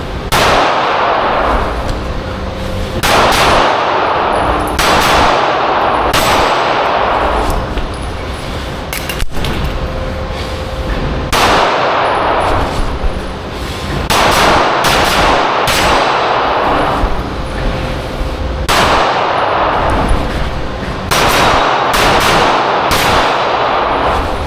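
Airsoft Glock pistol firing a string of shots at steel targets, each BB hit a ringing clang. The shots come about once a second in an irregular rhythm with short pauses between target arrays.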